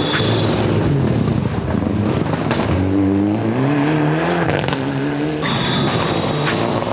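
Mitsubishi Lancer Evolution rally car's turbocharged four-cylinder engine driven hard past at close range, its revs rising and falling through gear changes, with a few sharp pops. A high steady whistle sounds near the start and again in the second half.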